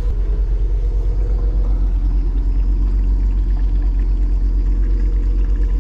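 Water being pumped into a boat's freshwater tank: a steady low hum with a fast, even pulse, with water pouring in.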